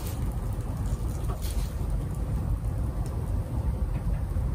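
Faint crinkles of bubble wrap under a cat's paws as it walks across the sheet, the clearest about a second and a half in, over a steady low rumble.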